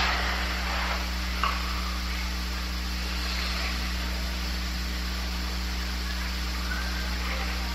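Steady background hiss with a low electrical hum, the room tone of a quiet recording, and one faint click about a second and a half in.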